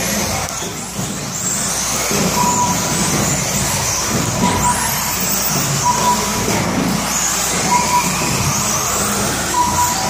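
Electric 1/10-scale 4WD RC buggies racing on a carpet track, their motors whining high and rising and falling as they speed up and brake. A short electronic beep repeats about every second and a half to two seconds.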